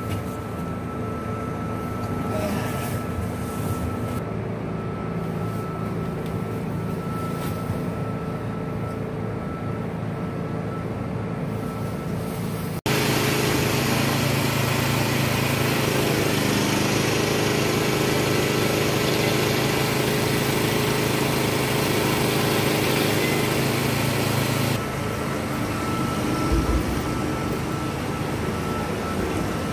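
An engine running steadily, with a thin, steady high whine over it. About 13 seconds in it cuts abruptly to louder engine running, which drops in level about 25 seconds in.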